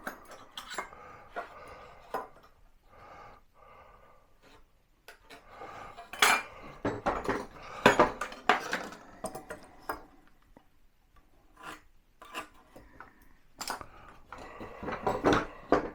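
Hand tools being handled on a workbench: an irregular run of metal clinks, taps and knocks against wood, loudest about six to nine seconds in and again near the end.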